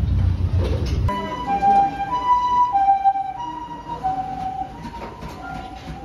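Japanese ambulance siren sounding its two-tone hi-lo call, one note about half a second then the other, over and over. It starts abruptly about a second in, after a low rumble. Both notes slide slightly lower and the siren fades as it moves away.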